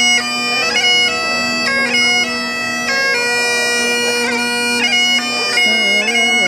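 Great Highland bagpipe playing a tune: steady drones sounding underneath while the chanter moves between melody notes, with quick grace-note flicks between them.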